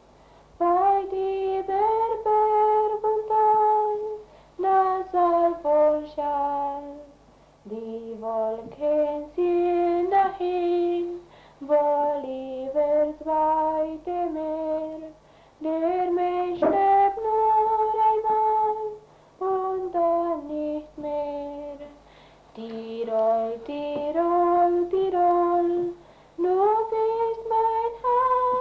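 Folk song on the soundtrack: a voice sings a melody in long held notes, phrase by phrase with short breaks between.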